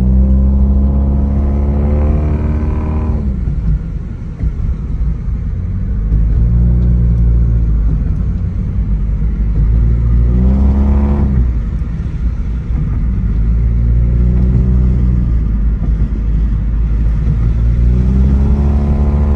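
A 1996 Subaru Legacy wagon's non-turbo 2.0-litre twin-cam flat-four boxer engine, heard from inside the cabin, accelerating through the gears of its 5-speed manual. The engine note climbs in pitch and then drops back at an upshift about three seconds in, again near the middle, and again at the end.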